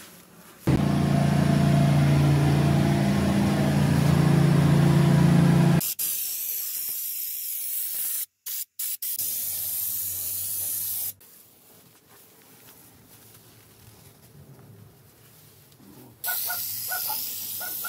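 Air-powered undercoating gun on a can spraying rubberized underbody coating, a steady high hiss that stops and restarts briefly a few times. Near the start, a louder steady mechanical hum with hiss runs for about five seconds.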